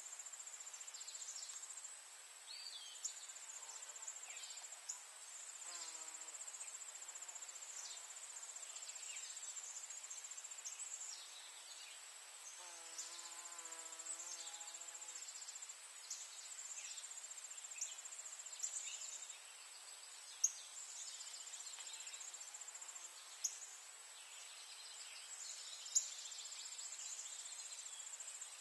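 Steady high-pitched trill of singing insects, with many short falling chirps scattered through it and a few sharp clicks.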